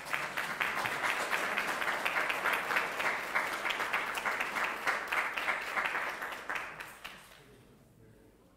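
Audience applauding, steady for about seven seconds, then dying away.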